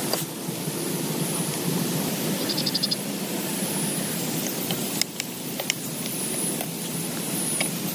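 Heavy rain falling steadily on a tent, a dense even rush with scattered sharper ticks of drops. A short rapid high trill sounds briefly about two and a half seconds in.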